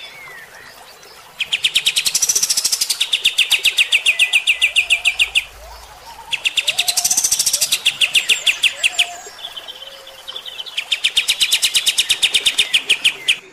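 Kapas tembak songbird singing its rapid-fire 'tembak' call: three long bouts of sharp, high notes repeated very fast and evenly, with short pauses between them.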